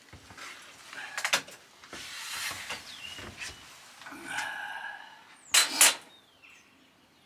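Tape measure and hands working on a plywood van floor: scrapes, rustles and knocks as the tape is pulled out and laid across the boards. There is a loud double clack about five and a half seconds in.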